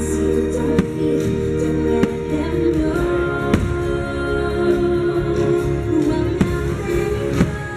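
Fireworks show soundtrack: music with choir-like singing, punctuated by several sharp bangs of firework shells bursting.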